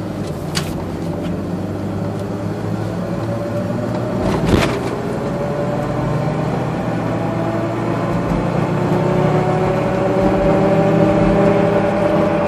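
Toyota 4Runner running, its sound a steady set of tones that slowly rise in pitch, with a sharp knock about four and a half seconds in.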